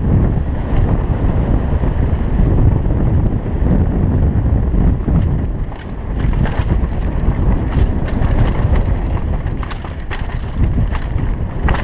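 Heavy wind buffeting on a helmet-mounted camera's microphone during a fast downhill mountain-bike descent, with the rattle of the bike over rocky dirt heard as scattered sharp clicks, more of them in the second half.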